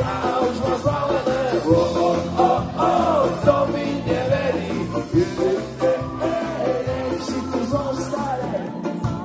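Live ska band playing a song, with a sung lead vocal over electric guitars, bass and a steady drum beat, heard from within the crowd.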